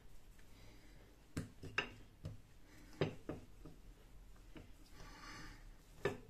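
Wooden rolling pin with handles knocking lightly on a countertop, about half a dozen short clacks, as it is picked up and rolled over a small ball of dough, with a soft rolling rustle near the end.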